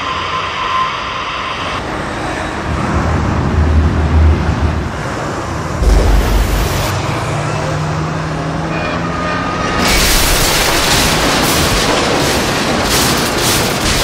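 Road traffic noise with heavy low rumbles. About ten seconds in, a louder hissing rush joins it.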